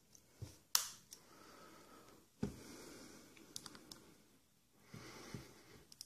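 A flathead screwdriver prying at the small metal locking clip on a baitcasting reel: faint scraping and small metal clicks, with one sharp click under a second in and a duller knock about two and a half seconds in.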